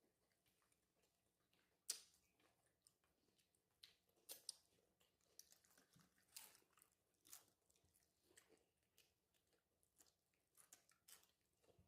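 Chewing and crunching of nachos made with tortilla chips: irregular sharp crunches with quieter chewing between them. The sharpest crunch comes about two seconds in.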